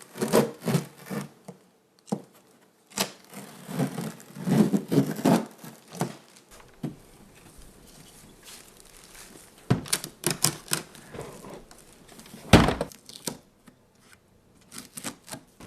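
Packaging being handled while a dehumidifier is unboxed: rustling and crinkling with scattered knocks and clicks. The loudest is a single thunk late on.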